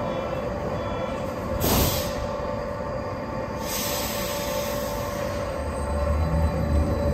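Berlin U-Bahn class HK train standing at the platform with a steady whine. There is a short hiss about two seconds in and a longer one a little past halfway. Near the end a low pulsing hum from its traction drive starts and builds as the train begins to pull away.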